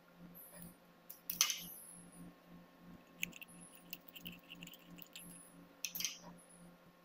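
Screwdriver clicking and scraping on the small screws of the metal cover plate of a Nardini Mascote lathe apron, with a sharper knock about a second and a half in and another near the end.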